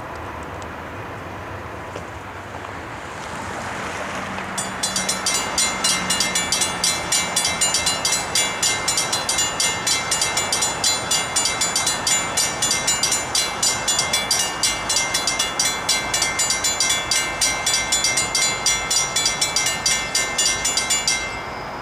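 Railroad grade-crossing warning bell ringing rapidly and steadily as a freight train approaches, the train faint beneath it. The bell cuts off suddenly near the end.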